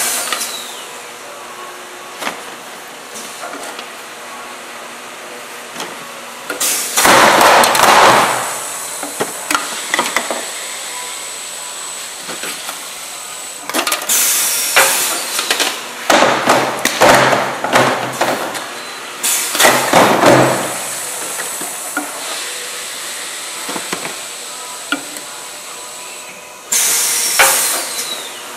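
Automatic inline overflow bottle filler running: every several seconds a loud burst of hissing from the pneumatic nozzle head and bottle gates cycling, mixed with bottles clattering and clinking on the conveyor, over a steady machine hum and a faint high whine.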